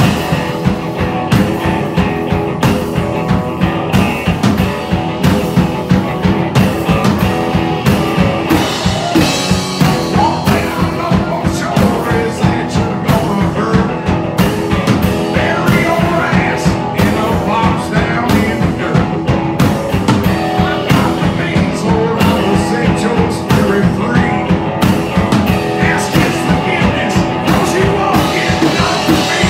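Live rock music from a duo: an electric guitar through an amplifier over a drum kit keeping a steady, driving beat.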